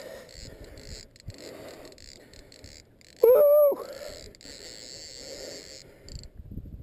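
A man's short, loud pitched cry about three seconds in, rising at first and then held for half a second, over a steady low background noise.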